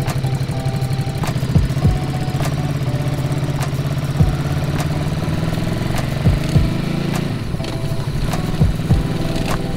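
Ducati SuperSport 950S's 937 cc L-twin engine idling steadily at low revs, with a few short sharp knocks over it.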